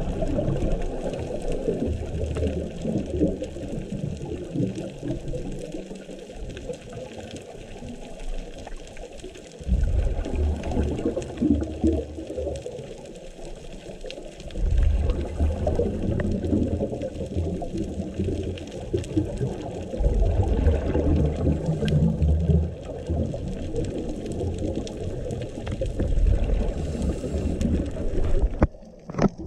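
Scuba diver breathing through a regulator, heard underwater: exhaled bubbles rumble out in bursts every few seconds, with quieter stretches between them during inhalation.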